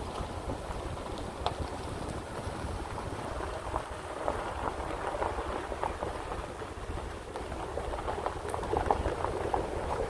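Ford F-150 pickup's tyres crunching slowly over a dirt and gravel road, a dense run of small crackles and pops over the low rumble of the truck.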